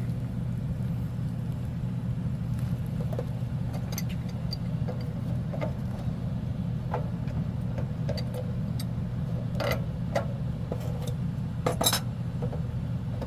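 Scattered metallic clinks and taps of a wrench working the union nuts on a water heater's supply lines, over a steady low hum.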